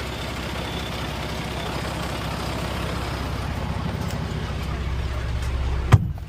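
Heavy truck diesel engine running with a steady low rumble that slowly grows louder, then a single sharp knock near the end, after which the sound drops off suddenly.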